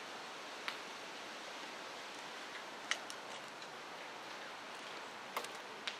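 Steady outdoor hiss with four short, sharp clicks scattered through it, the loudest about three seconds in.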